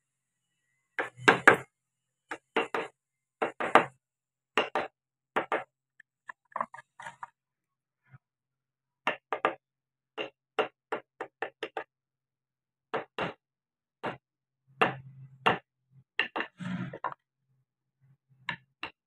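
Wood-carving chisel cutting into a wooden figure's face in short strokes, giving a run of sharp clicks and knocks, often two in quick succession, with brief pauses between runs.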